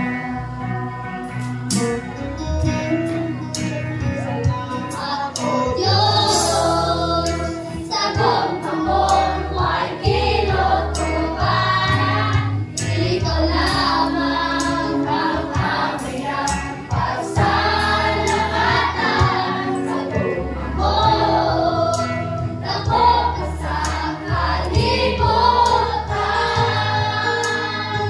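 A group singing a Christian worship song in chorus over an instrumental backing with a steady bass line and beat.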